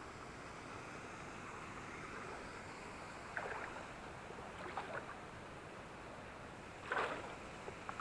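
Steady rush of stream water, with a few splashing footsteps wading through shallow water about three, five and, loudest, seven seconds in.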